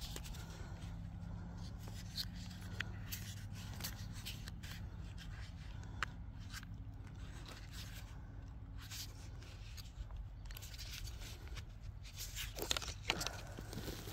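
Faint, scattered clicks and scrapes of flat plastic drip tape being folded on an angle and worked into a fitting by hand, over a low steady hum.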